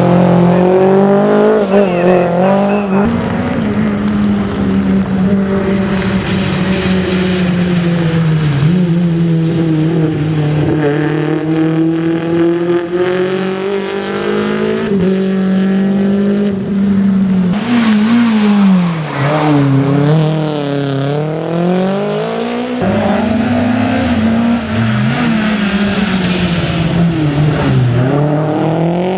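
Renault Clio Williams rally cars' 2.0-litre four-cylinder engines at full throttle, the pitch climbing and dropping again and again through gear changes and lifts. The sound jumps abruptly a few times as one car gives way to another.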